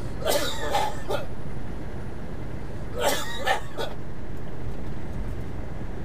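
A truck driver coughing hard in a sudden coughing fit: two bouts of about three coughs each, the first right at the start and the second about three seconds in. Under them runs the steady low drone of the semi truck's cab at highway speed.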